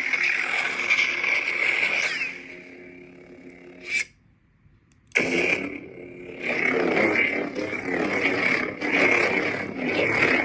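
Lightsaber sound boards playing a Survivor sound font through a Smuggler's Outpost Elite 28 mm speaker: swing sounds over the steady hum, then the hum alone. About four seconds in the blade retracts with a short burst and goes silent for about a second, then a saber ignites suddenly and the swing sounds resume.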